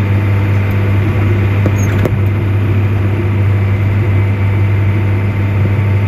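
Steady, loud, low mechanical hum of running machinery, with a couple of faint clicks about two seconds in.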